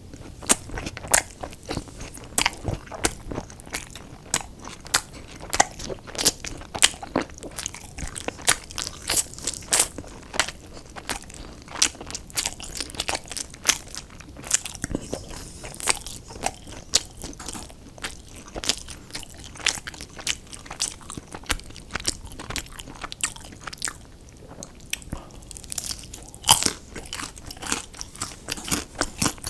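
Close-miked chewing and crunching of crispy fried fast food, with sharp crunches several times a second and wet chewing between them.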